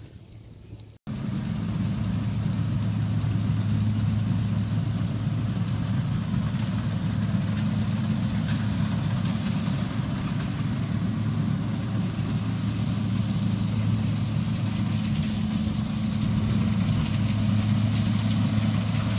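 Kubota DC60 combine harvester running steadily, a low even diesel engine hum with the machine's mechanical noise over it, cutting in abruptly about a second in.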